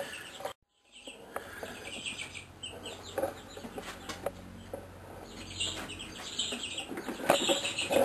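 Bird calls, clucking and chirping in short bursts, over a low steady hum; the sound cuts out completely for a moment just after the start.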